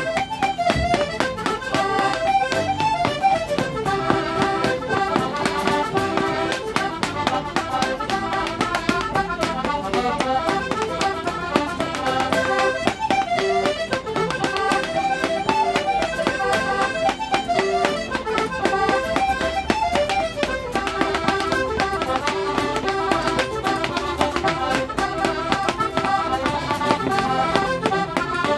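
Irish traditional session music: accordion and fiddles playing a tune together in unison over a steady, quick pulse.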